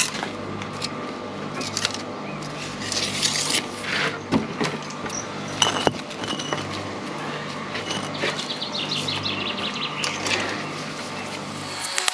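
Bricklaying work noises: scrapes and sharp knocks as a trowel, tape measure and cut concrete block are handled on top of a blockwork wall, with a short run of light clicks about eight seconds in. A low pulsing hum runs underneath.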